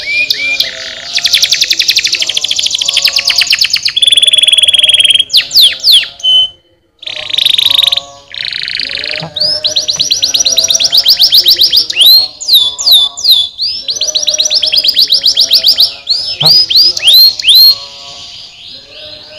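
Domestic canary singing: fast trills and rolls of repeated rising whistled notes, with a brief pause about seven seconds in.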